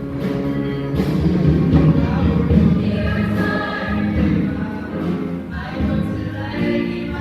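Junior high choir singing together over musical accompaniment.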